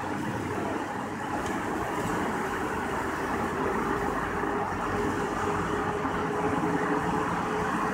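Steady road and engine noise inside the cabin of a moving vehicle, tyres running on wet pavement, growing slightly louder near the end.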